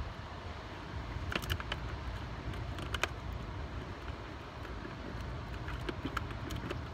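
Steady wind rumble on the microphone with the rush of open water, and a few sharp clicks and taps from fishing tackle being handled as a rod is cast.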